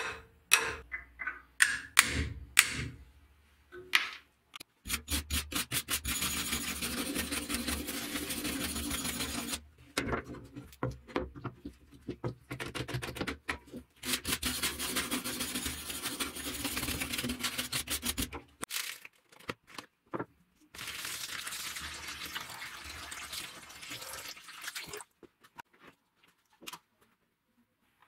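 A hammer taps a steel center punch against a cleaver's steel tang a few times, each strike ringing briefly. Then comes long, steady, rapid back-and-forth scrubbing of a hand wire brush on the rusty steel blade, in two long stretches with a short pause between them. A last stretch of similar rasping comes near the end.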